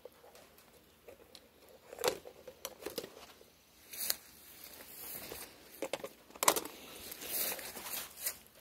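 Intermittent rustling with a handful of short, sharp knocks and scrapes: close handling noise from bird feeders being handled and hung.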